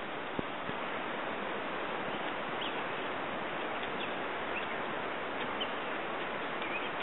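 Steady, even outdoor hiss of open-air ambience, with a few faint, short bird chirps scattered through it.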